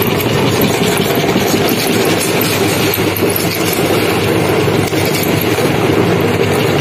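Belt-driven metal meat grinder running steadily. It pushes out the last of the ground ring chips, then turns over with an empty hopper.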